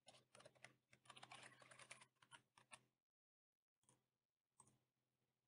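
Faint computer keyboard typing, a quick run of keystrokes lasting about three seconds that then stops. After a short pause, a couple of isolated faint clicks.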